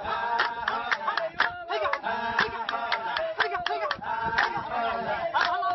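A pair of Laysan albatrosses in courtship display: rapid clacking of their bills mixed with repeated drawn-out calls that fall in pitch.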